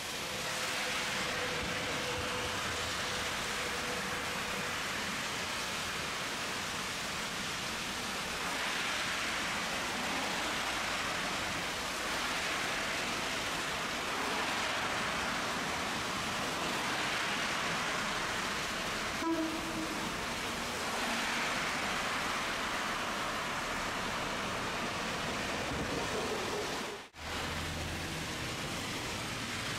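Tosaden streetcar running, a steady rolling rumble that swells and eases every few seconds. A faint steady whine is heard early on and a small click about 19 seconds in. The sound cuts out briefly near the end.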